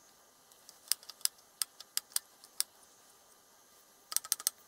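Sharp light clicks and ticks from the Smiths vertical gyro's gimbal mechanism as it is rocked back and forth by hand: a run of about seven spaced clicks, a pause, then a quick cluster near the end. The clicking comes from play in the gimbal that the owner thinks is not normal, though he is not sure.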